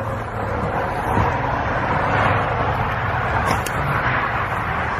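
Steady road noise of highway traffic, a continuous hiss of tyres on pavement that swells a little over the first two seconds.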